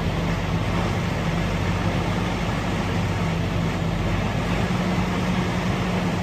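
Detroit DD15 six-cylinder diesel engine of a Freightliner SD122 dump truck idling steadily, a low even drone.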